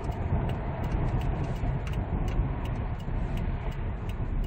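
Steady engine and road rumble inside the cab of a 2005 SsangYong Musso Sports diesel pickup, with the turn-signal relay clicking evenly about three times a second as the indicator is on for a U-turn.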